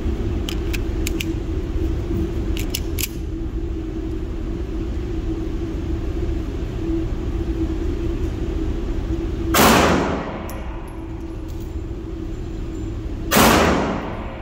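Two gunshots on an indoor range, about four seconds apart, each with a short echoing tail, over a steady low hum. A few light clicks come in the first few seconds.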